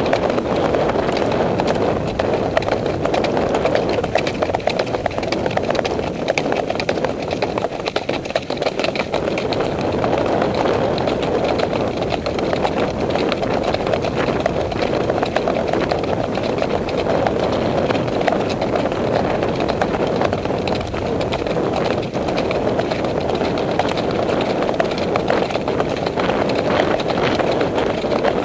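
Horses' hoofbeats on a dirt track, heard from a ridden horse, under a continuous loud rumble of movement and air on the camera microphone.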